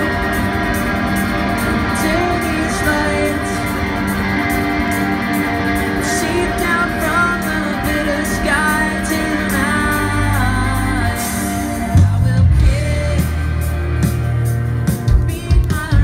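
A live rock band playing with a lead vocal over electric guitars, bass and drums, recorded on a phone from the crowd. About twelve seconds in, the bass and drums hit harder.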